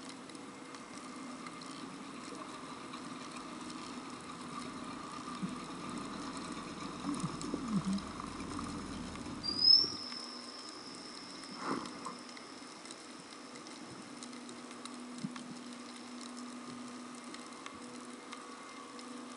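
Underwater sound: steady low hums over constant faint crackling. Just before halfway comes a sudden high whistle that glides up briefly and then holds one pitch, followed a couple of seconds later by a short knock. The diver wonders whether the whistle is a dolphin.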